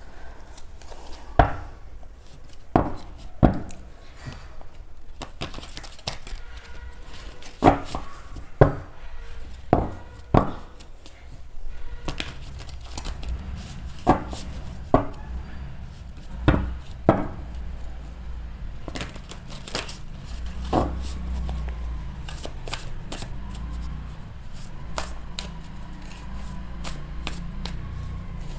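A tarot deck being handled and shuffled on a table. For the first half there are about a dozen sharp knocks and taps of the cards, a second or so apart; after that come rapid small clicks of cards sliding through the hands.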